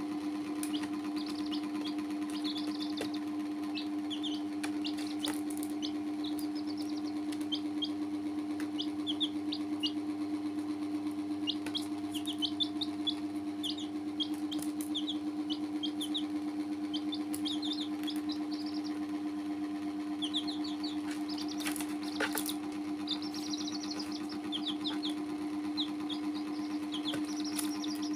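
Domestic chicks peeping in quick runs of short, high, downward-sliding peeps, over a steady low hum that runs beneath them. A few sharp clicks come through now and then.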